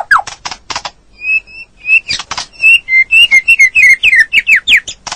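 White-rumped shama singing a varied song. Quick downward-slurred whistles and sharp clicking notes come first, then a short lull, then clear whistled notes and a fast run of falling slurs, with more clicks at the end.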